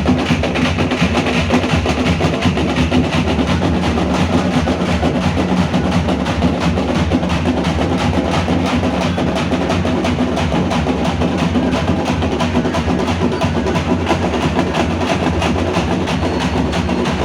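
A group of drums played loud and fast, in a dense, unbroken run of strokes.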